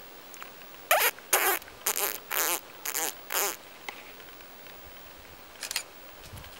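Six short, high, warbling squeaks in quick succession: a whistled predator call imitating a distressed mouse to lure a red fox in close. A brief faint click follows near the end.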